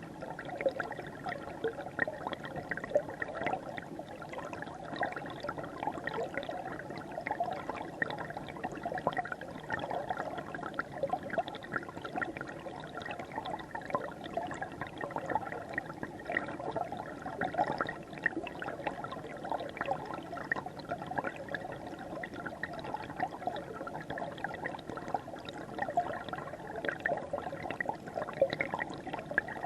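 River water flowing, a steady, unbroken babble of many small splashes and gurgles.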